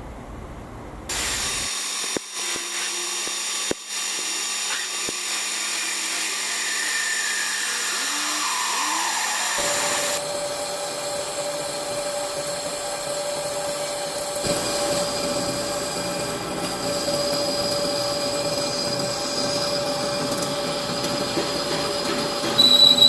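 Metal lathe running during machining, a steady mechanical whine with several high tones held throughout. The sound changes abruptly twice, and one tone falls slowly in pitch partway through.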